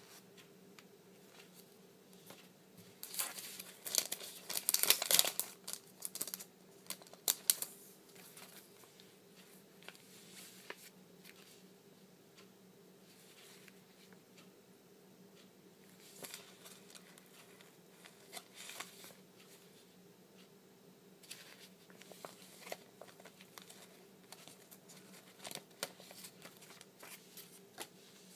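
Crinkling and rustling of a clear plastic sticker bag and its foil heart sticker sheet being opened and handled. The crinkling is loudest and densest a few seconds in, then comes back in softer, scattered bursts as the stickers are handled and peeled.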